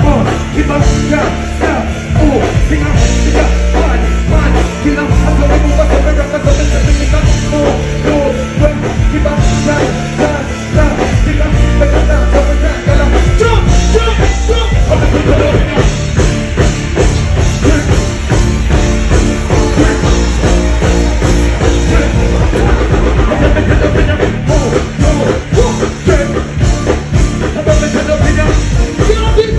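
Loud live-show music: the DJ's rhythm playing with a heavy bass beat, and a performer's vocals over it.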